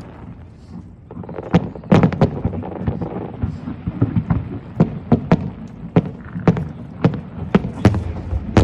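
Aerial fireworks shells bursting: a run of sharp bangs, about two a second, starting about a second and a half in, over a low rumble.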